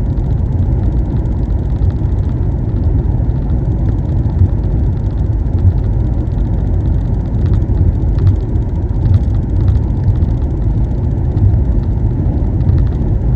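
Steady low rumble of tyre, road and engine noise heard from inside a car's cabin while driving at highway speed.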